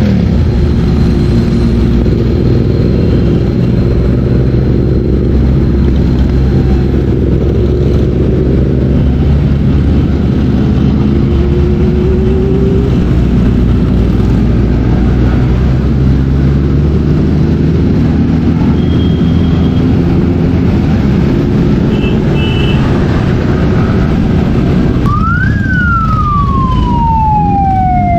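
Motorcycle engine running steadily under way, a loud low rumble with road noise. About 25 seconds in, a siren starts wailing, its pitch sweeping down and then back up.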